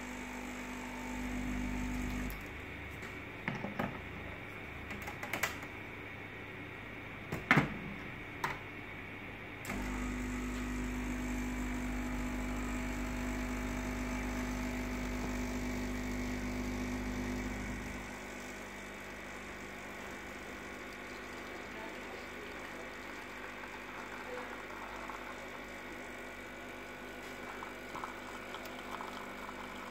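Gustino GS 690 espresso machine's pump buzzing steadily while brewing: a short burst at the start, a few clicks and knocks, then a longer run of about eight seconds before it stops and the machine goes quiet.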